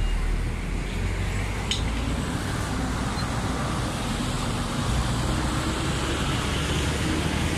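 Steady street traffic noise: cars driving past with a low engine rumble, and one short click about two seconds in.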